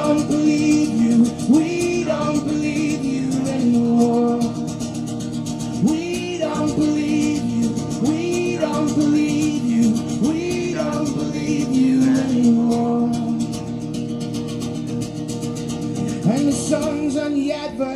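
Live folk song: a male voice sings over a strummed acoustic guitar, amplified through a PA.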